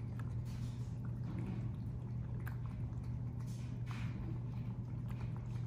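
Two cats eating wet food from bowls: scattered soft, wet smacking and chewing sounds. A steady low hum runs underneath.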